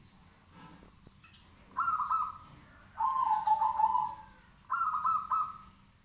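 Caged zebra dove (perkutut) cooing in three phrases, the middle one the longest, in full song.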